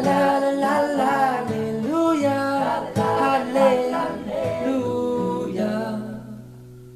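Male voice singing over guitar: the last sung phrases of a pop song. The singing stops about six seconds in and a held final note fades out.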